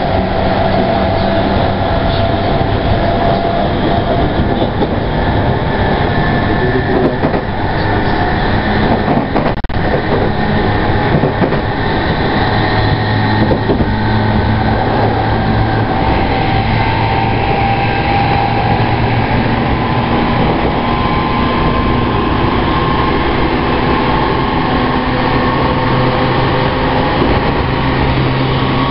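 Running sound of a Tokyu 5050 series electric train, heard from on board: a steady rumble of wheels on rail, with the whine of the VVVF inverter and traction motors drifting slowly in pitch. There is a single sharp knock about ten seconds in.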